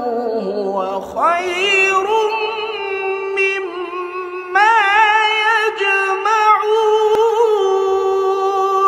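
A man's unaccompanied voice reciting the Qur'an in the melodic tajweed style, holding long high notes with ornamented turns. A new phrase begins about a second in and another, louder, about four and a half seconds in.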